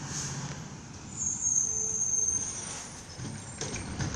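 Garbage truck approaching along the street, its engine running with a low rumble, and a high-pitched squeal lasting about a second and a half from about a second in.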